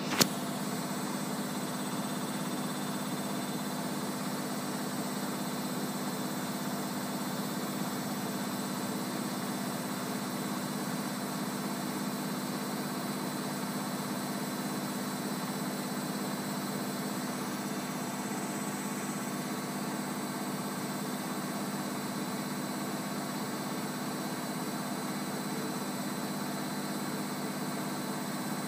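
Bosch Maxx 40 WFC2445 washing machine running with an even, unchanging hum, with a sharp click just after the start.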